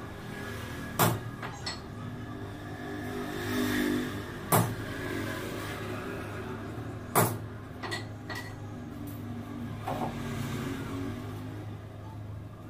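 Sharp knocks from hand work on metal bicycle parts, the three loudest about three seconds apart with a few lighter taps between. A steady low hum runs under them.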